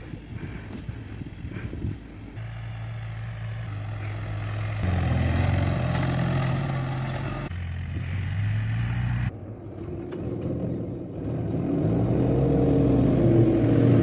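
Deutz tractor's diesel engine running, heard in several short clips that change abruptly, and growing louder over the last few seconds.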